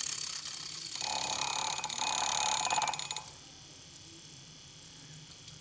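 Handheld battery milk frother whirring as its spinning whisk beats instant coffee in a mug. It runs loud and rattly for the first three seconds, then settles to a quieter, steady whir.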